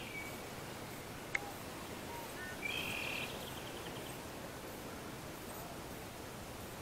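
Quiet outdoor ambience with birds calling: a short call at the start and a longer, rapidly repeated call about three seconds in. A single sharp click about a second and a half in.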